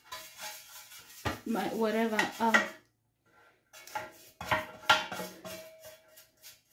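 A pastry brush spreading oil around the inside of a silicone cake pan, making light scrapes and small taps as the pan shifts on the counter. A short stretch of voice sounds about a second and a half in.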